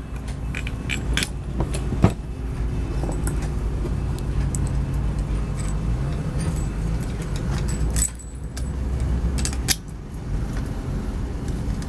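Small metal hardware clinking and ticking as a nut and washer are fitted to a shifter cable end, with one sharper click about two seconds in. A steady low engine-like rumble runs underneath.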